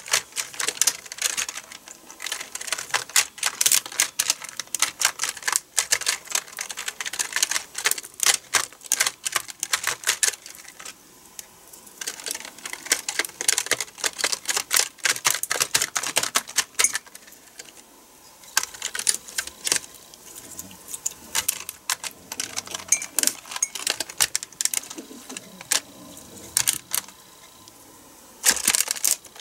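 Computer keyboard keys clicking and clattering as a gel cleaning putty is pressed and dabbed across them, in rapid irregular flurries with a few short lulls.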